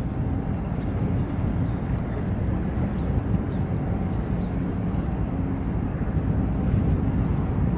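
Low, steady engine rumble of an approaching coast guard patrol vessel, heard across open water.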